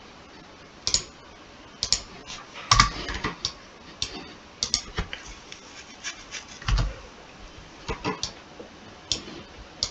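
Computer keyboard being typed on in irregular bursts of key clicks, with two heavier thuds about three and seven seconds in.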